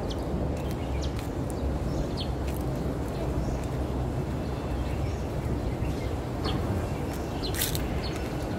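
Outdoor street ambience: a steady low rumble, with a few short high chirps about two and a half seconds in and again near the end.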